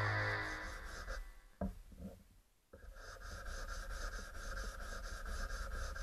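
Background music fading out, then about a second of near silence, then quiet music starting up again.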